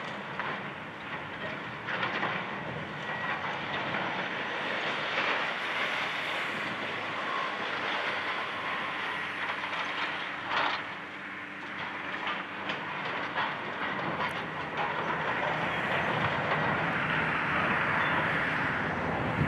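Hydraulic demolition excavators tearing into a concrete office building: the diesel engines run steadily under a continuous rumble and clatter of breaking concrete, metal and falling debris. A few louder crashes stand out, the sharpest about ten seconds in.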